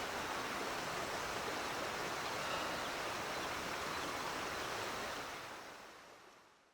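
Stream water rushing steadily over rocks, fading out over the last couple of seconds.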